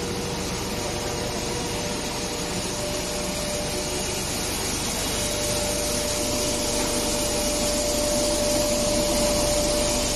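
TPE underwater pelletizing extrusion line running: a steady whirring machine noise with a hiss and a steady whine, growing a little louder in the second half.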